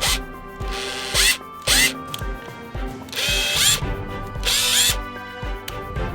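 Makita HR165D 18V cordless hammer drill run in several short trigger pulls, the motor whining up in pitch each time, the longest about half a second, over background music.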